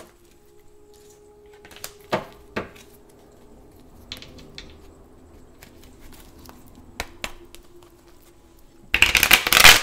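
Tarot cards being handled: a few light taps and clicks, then a loud, brief rustling burst of shuffling near the end.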